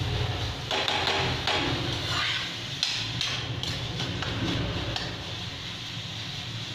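Steel spatula scraping and knocking against a steel kadhai as grated carrots cooked with sugar for gajar ka halwa are stirred, in irregular strokes that are busiest in the first half, over a low steady hum.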